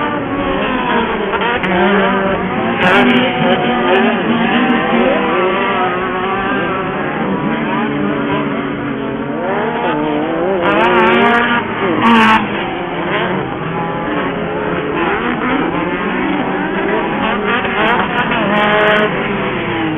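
Several off-road Pro Buggy race engines revving up and down, their overlapping pitches rising and falling as the buggies race.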